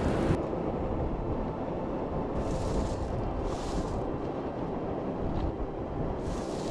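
Steady rumble of wind on the microphone over the surf on a shingle beach, with three brief hissing swishes.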